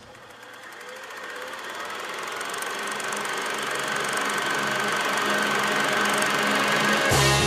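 A riser sound effect: a hiss with a fast fine ticking and a steady hum, swelling louder throughout, until rock music with a beat starts near the end.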